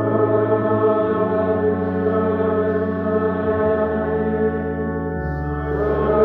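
Slow choral chant: voices hold long notes over steady sustained chords, moving to a new pitch every second or two.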